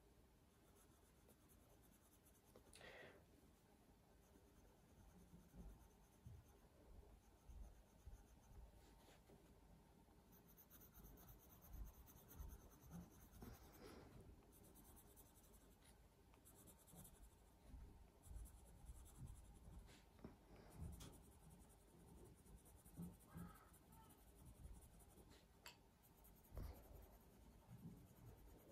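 Faint scratching of a coloured pencil shading on drawing paper, in irregular strokes, as a layer of colour is built up.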